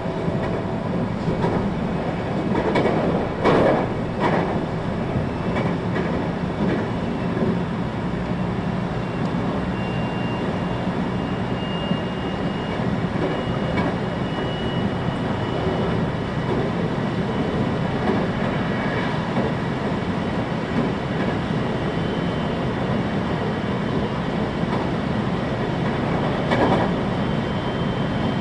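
521-series electric multiple unit running along the line, heard from inside the passenger car: a steady rumble of wheels on rail with louder clatters about three to four seconds in and again near the end. A faint high whine comes in from about a third of the way through.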